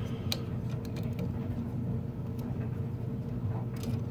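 Washer and dryer running, a steady mechanical hum. A few light clicks come from wires being handled at a circulating pump's wiring box.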